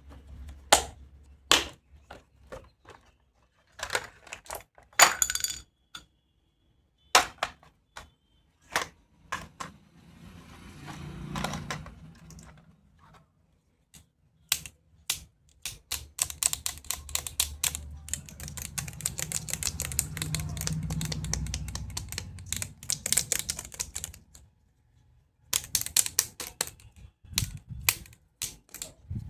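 Plastic toy doctor-kit tools being handled, giving sharp clicks and taps. A long stretch of rapid clicking and clattering comes about halfway through, then a short pause and more clicks near the end.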